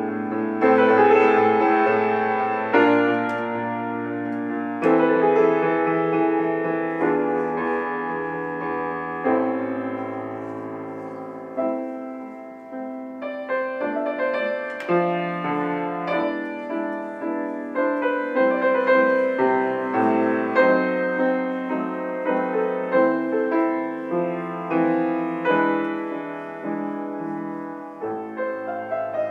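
Solo piano playing a composed piece: struck chords over held bass notes, changing every second or two, then from about halfway through a quicker run of repeated, shorter notes.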